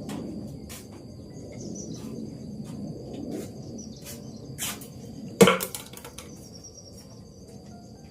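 Water dripping irregularly after rain, with a steady high-pitched insect chirr underneath. One much louder drip or knock lands about five and a half seconds in.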